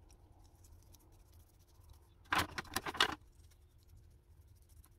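Faint light scratches of a paintbrush on a bare metal hand-tool body, then a quick cluster of sharp metallic clinks and knocks about two and a half seconds in as the tool is handled over a foil tray.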